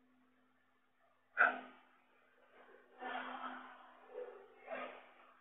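Breaths and sniffs close to the microphone, over a faint steady hum. There is a sharp intake about a second and a half in, a longer breath at about three seconds, and two short ones near the end.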